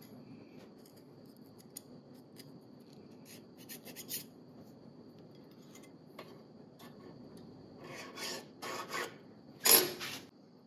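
Hand file scraping across the end of a steel piston ring: a few faint scrapes around four seconds in, then three louder strokes near the end, the last the loudest.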